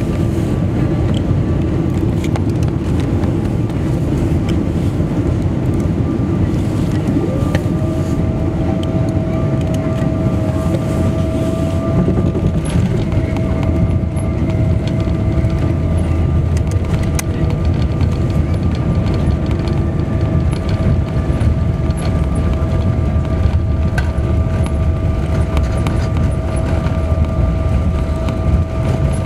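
Cabin noise of a Boeing 777-200ER landing: a loud, steady roar of the engines and rushing air heard from a seat over the wing, carrying on through touchdown and the rollout with the spoilers raised. A steady whine slides in about a quarter of the way through and holds.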